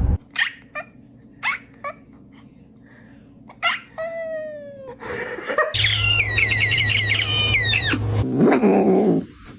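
Domestic cat vocalizing: a few short sharp clicks, then a run of meows and drawn-out, wavering yowls in the second half.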